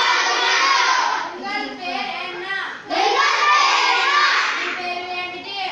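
Children's voices reciting phrases aloud in a sing-song, chant-like delivery, in four phrases of about a second and a half each, in Tamil.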